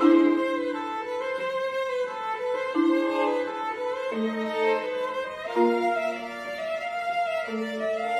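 Violin and cello playing long bowed notes together, each held for a second or two before the pitch steps to a new note.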